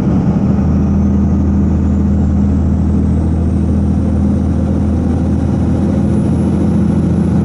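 A 2001 Dodge Ram 2500's 5.9-litre 24-valve Cummins inline-six turbo diesel pulling hard up a steep grade, heard from inside the cab as a steady low drone.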